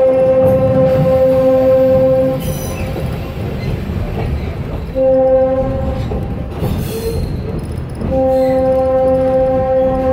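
Locomotive's horn sounding a single steady note as the train runs: a long blast that cuts off about two seconds in, a short blast about five seconds in, and another long blast starting about eight seconds in, the long-short-long pattern of a grade-crossing signal. The low rumble of the moving train runs underneath.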